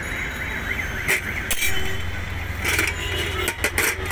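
Steady traffic rumble and street hubbub, with several sharp metallic clinks of stainless steel cups being handled on a steel tray.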